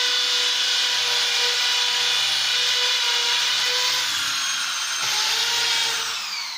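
Electric drill running steadily under load, boring a hole for mounting a window grill. Near the end the trigger is let go and the whine falls away as the motor spins down.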